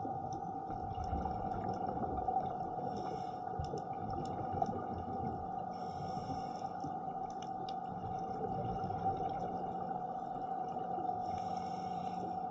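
Underwater sound beneath a boat's hull: a steady hum over low rumbling water noise, with a short hiss from a scuba regulator breath every three to five seconds.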